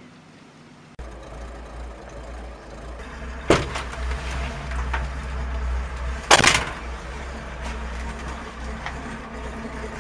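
A vehicle's engine running with a steady low rumble that cuts in suddenly about a second in, with two sharp knocks about three seconds apart, the second the louder.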